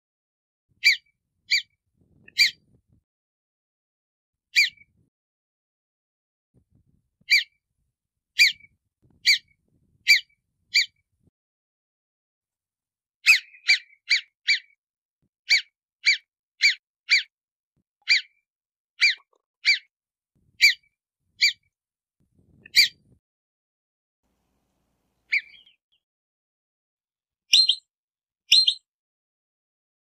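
Ground squirrel alarm calls, of the marmot and prairie dog kind. About two dozen short, sharp, high chirps come singly and in runs, with a steady stretch of about one a second midway through.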